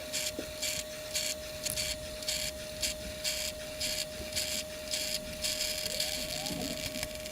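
Beko CFD6151W drip filter coffee machine brewing, sped up: quick, irregular hissing spurts of steam and water, about three or four a second, over a steady hum.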